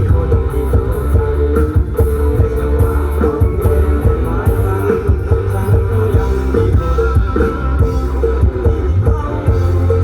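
Rock band music with guitars and a drum kit playing a steady rhythm.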